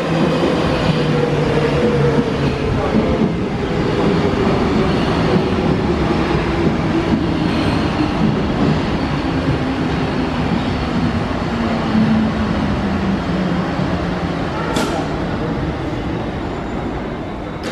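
Munich U-Bahn Type A metro train pulling into an underground station and braking to a stop. Its motor whine falls slowly and steadily in pitch as it slows, over the running noise of wheels on rail, with a single sharp click near the end.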